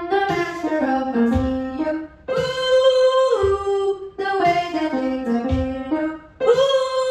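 A woman singing a melody into a microphone in phrases of about two seconds with long held notes, over piano and a programmed backing beat with a low thump about every two seconds.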